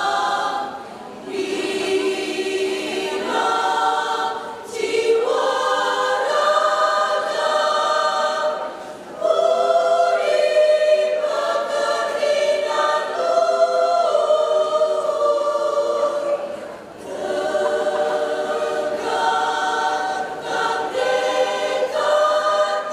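Women's choir singing in sustained part-harmony, phrase after phrase, with brief breaths between phrases.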